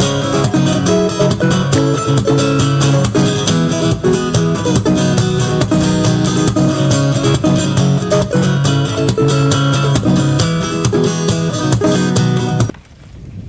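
Background music led by strummed and plucked guitar with a steady rhythm, cutting off suddenly near the end and leaving a quieter rushing noise.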